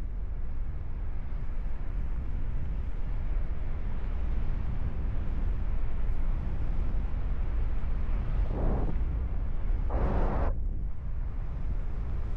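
Wind rushing and buffeting over the microphone of a paraglider pilot in flight, a steady low rumble. Two short louder bursts of noise come in the last few seconds.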